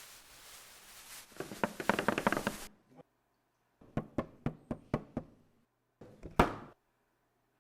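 Hand-made foley knocks and impacts: a quick clattering run of small taps that cuts off abruptly, then a series of about six separate sharp knocks, and one louder thud near the end.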